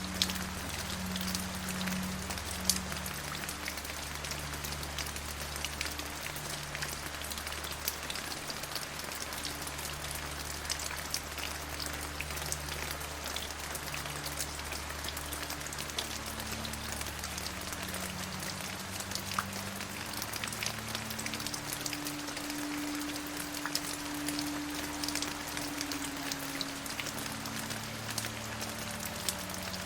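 Steady rain falling, with many separate drops ticking sharply through an even hiss.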